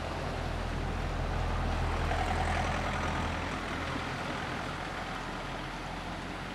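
Low engine rumble of a passing heavy motor vehicle, swelling about two seconds in and then fading away, over a wash of wind and small waves on the rocks.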